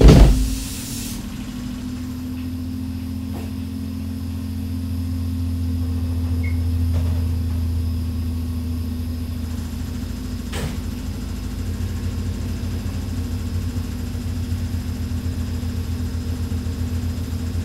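Hakone Tozan Railway electric train giving a steady low electrical hum of its motors and equipment, with a knock at the start and a faint low throb setting in about two-thirds of the way through.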